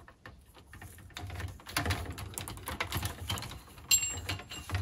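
Light clicking and rustling of plastic RO tubing sliding through a plastic faucet locking nut and ring as they are handled, with a sharper click a little before four seconds in.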